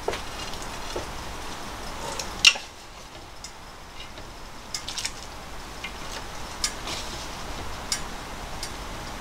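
Wooden chopsticks stirring spaghetti in a large stainless steel pot of boiling water, with irregular sharp clicks as they knock the pot, the loudest about two and a half seconds in, over a steady hiss from the boiling pot.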